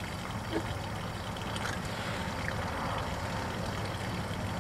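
An engine idling steadily, a low even hum with a light hiss above it.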